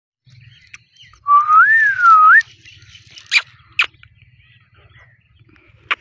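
A male Indian ringneck parrot gives one clear whistle, about a second long, that rises, dips and rises again. Two short sharp calls follow half a second apart.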